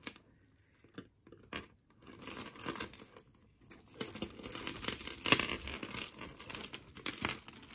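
A plastic bag crinkling and rustling as it is handled and opened, with a few small clicks before the rustling starts about two seconds in.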